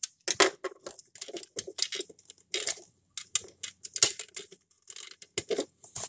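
Irregular small clicks, taps and scrapes of a diecast model car's plastic and metal parts being handled and pried at by hand, as a stuck interior piece is worked loose.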